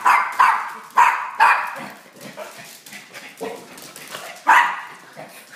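Small dogs barking excitedly while begging for a treat: about six sharp, separate barks with uneven gaps between them, the loudest near the end.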